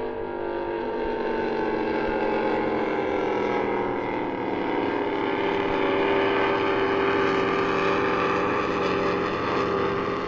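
Offshore racing powerboat's engines running at speed, growing louder as the boat comes nearer, their pitch drifting slowly lower.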